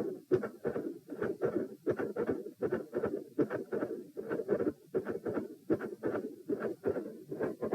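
Heart sounds heard through a stethoscope: a regular beat of short paired thuds, the first and second heart sounds both split, over a continuous rough murmur.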